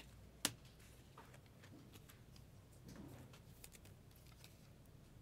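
Near silence broken by faint clicks of trading cards being handled and slid into plastic sleeves and top-loaders, with one sharper click about half a second in.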